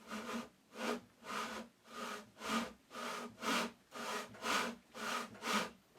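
Hand saw cutting through the side of a small wooden box with steady back-and-forth strokes, about two a second, to cut the lid free.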